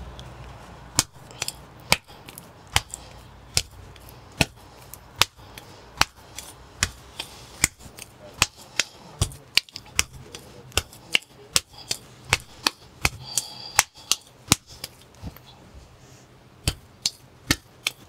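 A lump of potter's clay slapped from palm to palm, a sharp wet slap about every second, as it is patted into a compact ball for the wheel.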